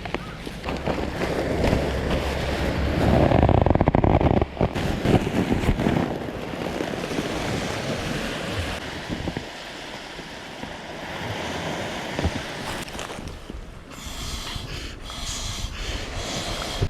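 Sea waves washing on the shore, with a low rumble of wind noise on the microphone for the first four seconds or so.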